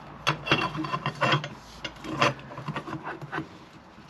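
Hands working thin LED wires through a tight hole in a black fender eliminator bracket: irregular rubbing and scraping, with a few light knocks of the bracket against a wooden workbench.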